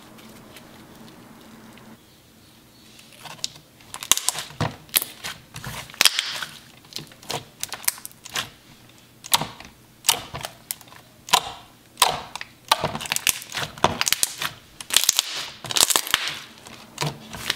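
Glossy, creamy slime pressed and poked by hand, giving a rapid, irregular run of sharp bubble pops and clicks as trapped air bursts, starting about three seconds in.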